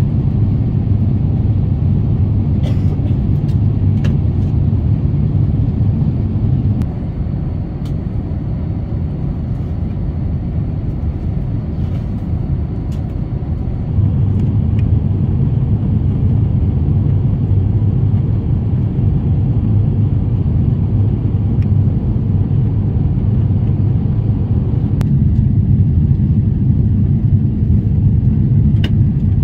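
Steady low rumble of cabin noise inside an Airbus A350-900 airliner, easing slightly for several seconds about a quarter of the way in before returning to its earlier level.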